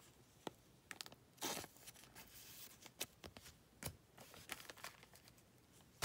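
Faint handling of trading cards and a foil booster pack: scattered soft taps and a brief crinkle of the foil wrapper, with a sharper click near the end.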